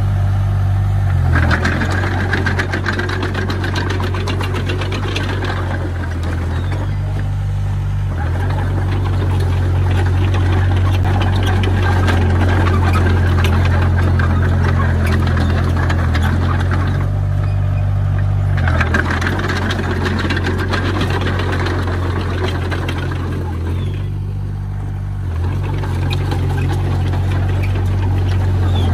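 Komatsu D20P bulldozer's diesel engine running, its note stepping down and back up several times as throttle or load changes, with a brief dip in loudness about three quarters of the way through.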